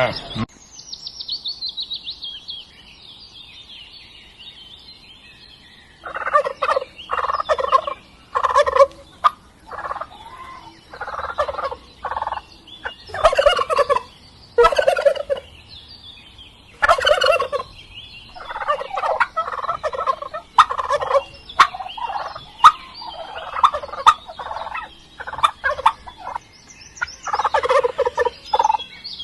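Domestic turkeys gobbling in many short, rattling bursts, one after another, from about six seconds in. A high, thin chirping comes at the start.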